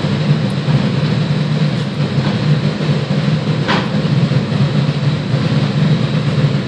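Large crane's diesel engine running steadily, a continuous low drone heard from inside the crane cab. A brief higher hiss comes through about three and a half seconds in.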